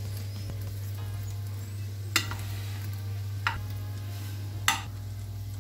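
Hot fat sizzling in a glass casserole dish of half-roasted potatoes as a metal spatula squishes them down, with three sharp clinks of the spatula against the glass about a second apart. A steady low hum runs underneath.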